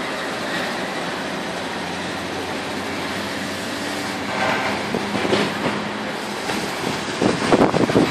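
Steady rumble of motor traffic. Near the end, gusts of wind buffet the phone's microphone.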